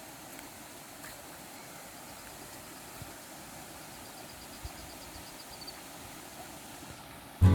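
Steady rush of the river and waterfall, with a faint high pulsing trill for a few seconds midway. Acoustic guitar music cuts in at the very end.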